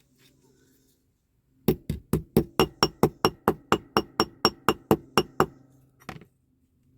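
A small hammer tapping quickly on a thin metal part to straighten it, about four light blows a second for nearly four seconds, each with a faint ring, then one last tap.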